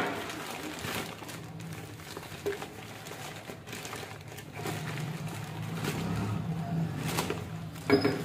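Plastic courier mailer bag rustling and crinkling as it is torn open by hand and a box is pulled out, with a sharp knock near the end.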